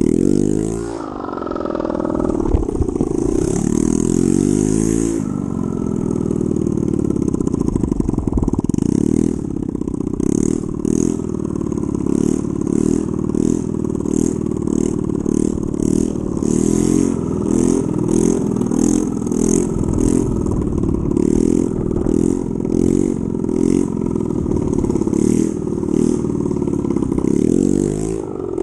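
2007 Honda Ruckus's 49 cc four-stroke single-cylinder engine, its exhaust broken, revved hard in repeated throttle blips while riding. From about a third of the way in the revs surge and drop more than once a second as the rider works the throttle to pop wheelies.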